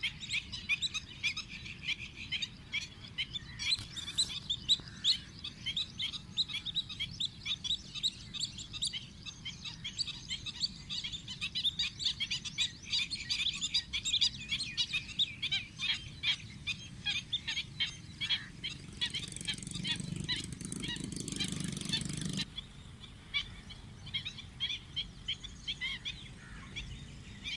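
Many birds chirping in rapid, overlapping short calls. From about 19 seconds in, a louder rushing noise rises over them for about three seconds and cuts off suddenly.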